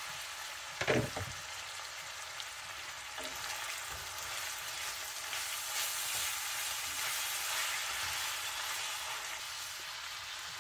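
Shredded cabbage and ground beef sizzling in the beef grease in a cast-iron skillet while being stirred with a wooden spoon: a steady frying hiss, with a brief knock about a second in.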